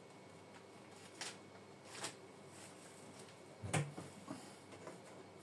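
A few light clicks and knocks of kitchen containers and utensils being handled, the loudest a dull knock about four seconds in, over a faint steady hum.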